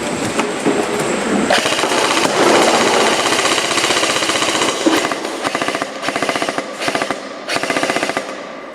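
Electric BB guns firing full-auto: a long continuous rattle of rapid shots, then a series of shorter bursts.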